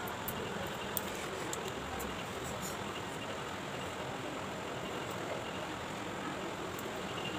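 Steady background noise, with a few faint short clicks in the first three seconds.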